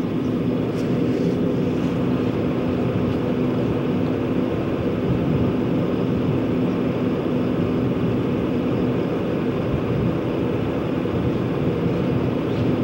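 Steady wind rush with a constant low hum underneath.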